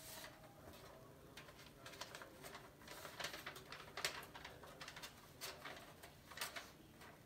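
A sheet of paper being unfolded and handled: a scatter of soft rustles and crinkles over faint room hum.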